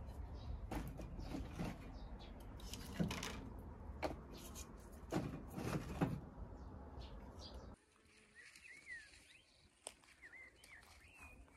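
Sticks of firewood knocking and clattering as they are pushed into the firebox of a cast-iron wood-burning cook stove, over a low steady rumble. About eight seconds in this stops abruptly and gives way to faint birdsong.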